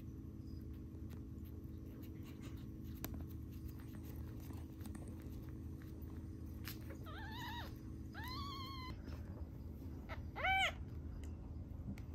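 Newborn kitten mewing three times in thin, high cries, the last one short and the loudest, over a steady low background hum.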